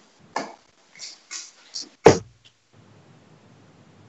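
A dart striking a bristle dartboard with one sharp thud about two seconds in, after a few fainter clicks and scrapes.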